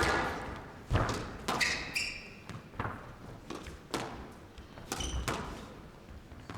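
Squash ball being struck and smacking off the court walls during a rally, a sharp crack every half second to a second that echoes in the hall. Court shoes squeak on the floor twice, about 2 s in and about 5 s in.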